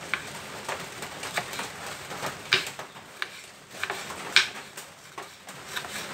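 Kitchen knife slicing chillies on a wooden cutting board: irregular sharp taps of the blade striking the board, about one or two a second.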